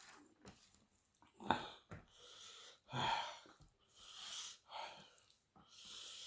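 Close-miked eating sounds: mouth noises and chewing with heavy breaths, in irregular bursts, with a sharp click about one and a half seconds in and the loudest burst about three seconds in.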